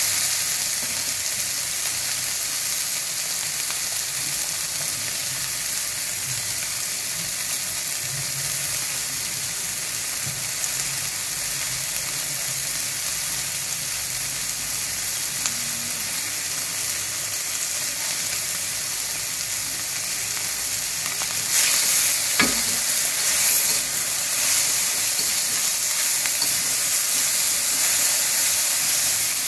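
Bean sprouts and quail eggs sizzling in a hot steel wok as a metal spatula stirs and scrapes them. The sizzle swells about three quarters of the way through, with one sharp knock in that louder stretch.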